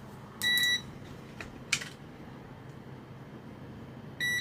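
A short, high-pitched electronic beep about half a second in, followed by two small clicks.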